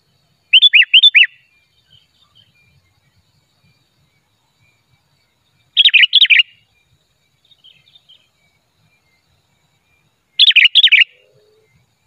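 Sooty-headed bulbul singing: three loud short phrases of four or five quick notes, about five seconds apart, with faint softer notes in between.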